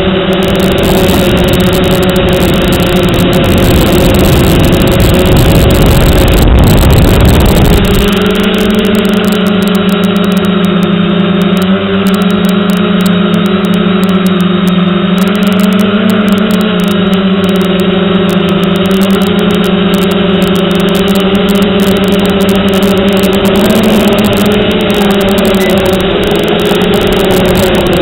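Quadcopter motors and propellers humming close to the onboard microphone, the pitch wavering slightly with the throttle. Heavy wind rumble on the microphone covers the low end for about the first eight seconds, then clears.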